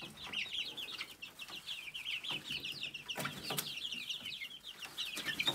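A brooder full of young chicks peeping without pause, many short high cheeps overlapping, with a few short taps among them.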